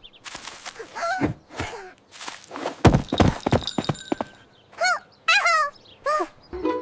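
Cartoon sound effects: a run of knocks and thumps, the heaviest about three seconds in, mixed with short squeaky cries that rise and fall in pitch from the animated characters.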